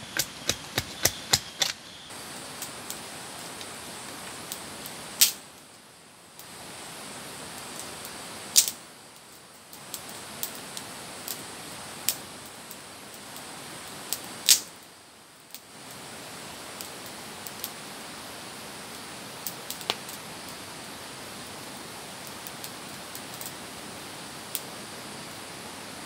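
A machete chopping at a wooden stake, several quick strokes in the first two seconds. Then a steady hiss with scattered small pops and a few loud sharp cracks, as a smoky wood campfire burns.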